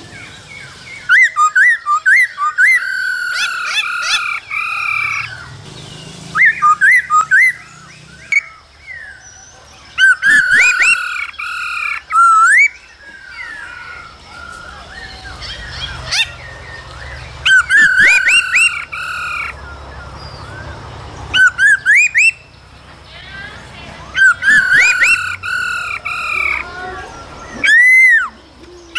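Black-throated laughingthrush singing: loud bursts of rapid, varied whistled and sweeping notes. A burst comes every few seconds, with short pauses between.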